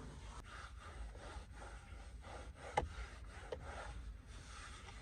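A cloth rubbing and wiping a car's interior surface in repeated strokes, with one sharp click a little under three seconds in.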